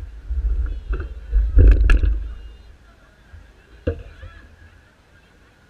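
Low rumble on the camera's microphone with three sharp knocks, the last about four seconds in, over faint crowd chatter.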